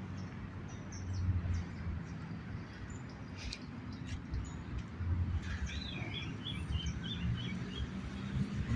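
A bird chirping in a quick run of about six short, high notes a little past the middle, with scattered faint chirps elsewhere, over a steady low rumble of background noise.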